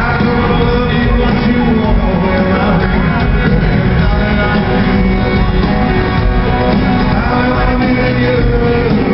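Live rock band playing with a man singing the lead, heard from the audience in a large arena hall.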